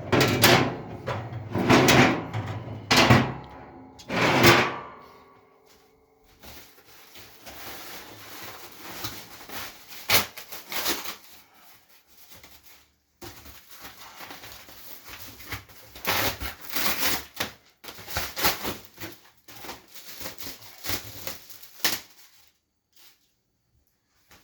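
Metal grill grates being set into a pellet grill's cooking chamber: several clanks that ring in the first five seconds, then a long stretch of metal scraping and sliding with louder rattling bursts, which stops a couple of seconds before the end.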